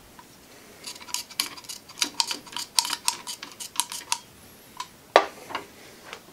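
Metal thumb-pump oil can clicking rapidly as it squirts cutting fluid onto a pipe tap, about six clicks a second for some three seconds, followed by one sharper metallic click.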